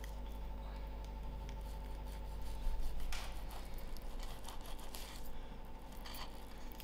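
A kitchen knife slicing through a raw chicken breast on a wooden chopping board to butterfly it, with soft cutting, scraping and rustling strokes, the strongest about three seconds in. A steady hum runs underneath.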